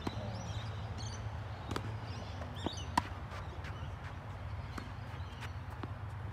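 Tennis rally: tennis balls struck by rackets and bouncing on the court, a string of sharp pops a second or so apart, the loudest pair close together about three seconds in. Birds chirp in the background over a steady low rumble.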